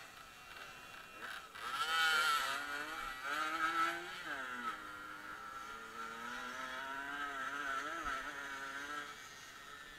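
Dirt-bike engine revving up and down as it is ridden along a dirt track, its pitch dipping sharply and climbing again about four seconds in, and easing off near the end.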